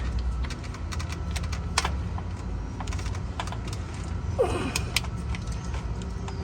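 Irregular light clicks and taps of hand work on the engine as a stretch belt is worked onto the 2011 Ford F-150's A/C compressor pulley with a zip tie, over a steady low hum. A short falling tone about four and a half seconds in.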